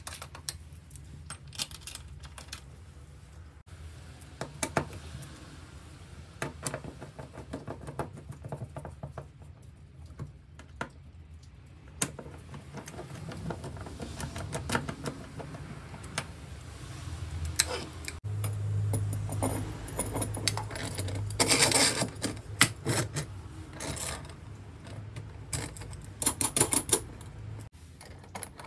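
Tools and small hardware being handled on a workbench: irregular sharp clicks and knocks over a faint low hum. A fast rattle of clicks comes a couple of seconds before the end.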